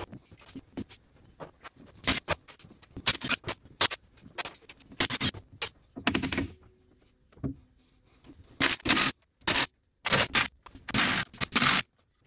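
Hand tools working a Land Rover Series III's propeller shaft joint at the differential flange: a socket wrench turns the flange nuts and a mallet taps the joint to free the shaft. The result is a string of irregular metallic clicks, scrapes and knocks, some in short bursts of up to half a second, more of them in the second half.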